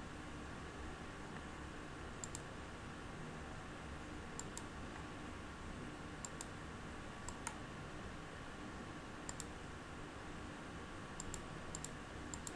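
Computer mouse button clicks: about ten short, light clicks scattered irregularly, some in quick pairs, over a steady low background hiss.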